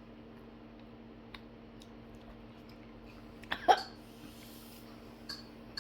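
A person makes one short, sharp throat sound about three and a half seconds in, over a steady low background hum with a few faint clicks.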